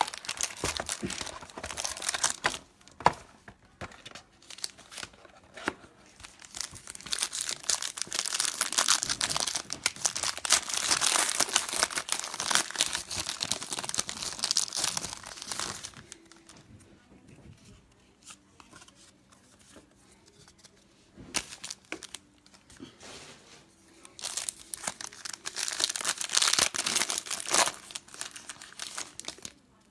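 Foil trading-card packs being torn open by hand, their wrappers tearing and crinkling, in busy stretches of rustling with a quieter spell in the second half.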